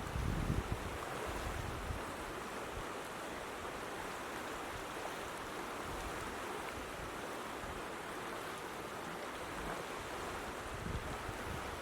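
Steady rush of a creek in flood, fast water running continuously. Wind buffets the microphone briefly at the start and again near the end.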